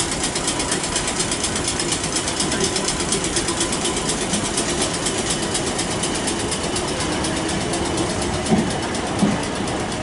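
South Western Railway Class 455 electric multiple unit pulling out of the platform, running with a fast, even ticking over a steady hum. Two short thumps near the end.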